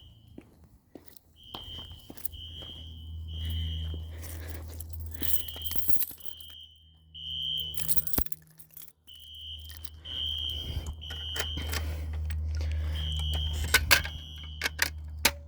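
Fire alarm horn on its high setting, sounding the temporal-three evacuation code: three high beeps, a pause, then three more, over and over. A steady low hum runs underneath and drops out briefly midway, with scattered clicks and rattles.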